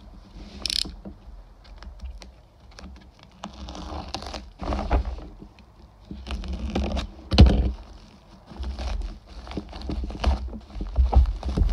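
A taped plastic mailer being handled, slit with a utility knife and torn open: crinkling plastic, the blade scraping through tape, and tearing, with irregular knocks on the wooden tabletop, the loudest about seven seconds in.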